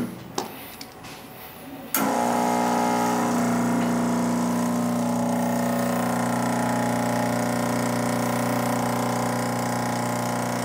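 Turin Gallatin espresso machine's pump buzzing steadily against a blind basket, building pressure toward the roughly 11 bar set by the OPV. It cuts out at the start with a click and starts again abruptly about two seconds in.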